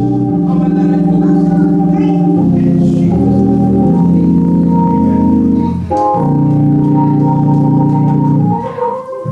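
Organ playing sustained, held chords that change every second or two, with a short break about six seconds in and a dip in level near the end.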